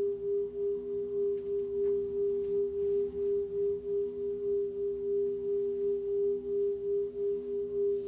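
A sustained drone from a looper: two steady held tones, the higher one stronger, wavering in a slow, uneven pulse. A few faint ticks about two seconds in.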